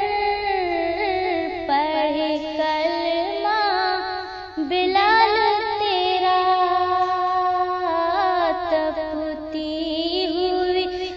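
A woman singing an Urdu naat, a devotional song in praise of the Prophet, in long, ornamented phrases with a short break about four and a half seconds in.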